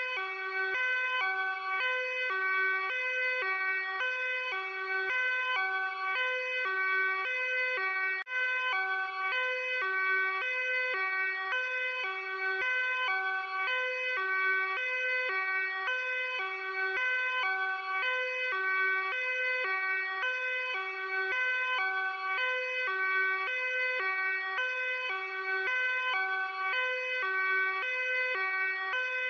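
Luxembourg police two-tone hi-lo siren, switching steadily between a low and a high note about once a second.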